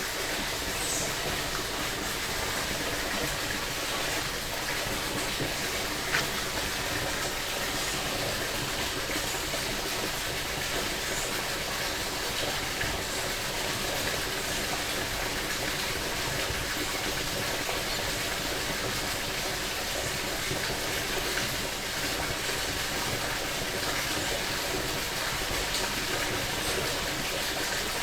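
Creek water running steadily, with one brief click about six seconds in.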